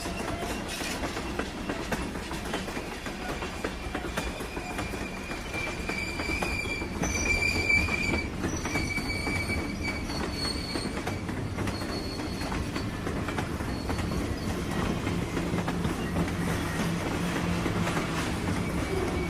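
Train running on rails with a steady low rumble and wheel noise, and a high metallic squeal from the wheels on the rails that comes and goes in the middle stretch.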